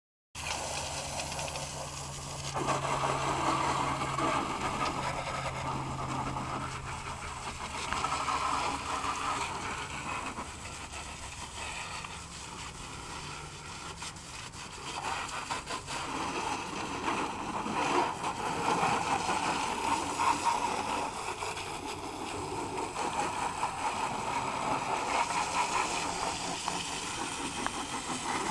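Garden hose with a pressure nozzle spraying water onto a mud-caked ATV, a steady hiss and splatter that swells and dips as the spray moves over the machine.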